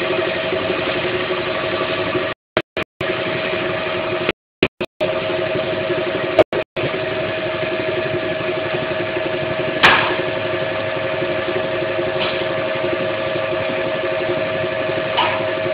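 Production-line machinery running with a steady mechanical hum that holds a few constant tones. The sound cuts out completely for moments several times in the first seven seconds, and a sharp clack stands out about ten seconds in.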